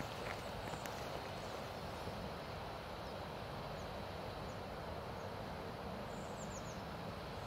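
Pyroland Giga Smoke 300 white smoke flare burning with a steady hiss, over a low rumble of wind on the microphone. A few faint, high bird chirps come in about six seconds in.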